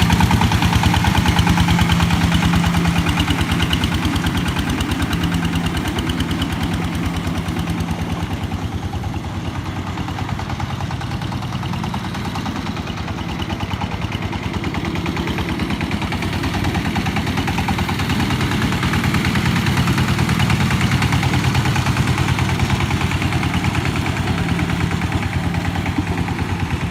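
Engine of a riding boat-type paddy tiller running steadily with a fast, even firing beat while it churns a muddy, flooded paddy field, dipping a little in loudness midway and coming back up.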